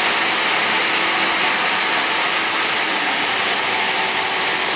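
Machinery of a running optical fibre cable extrusion production line: a steady, constant whirring hiss with a faint steady hum beneath it.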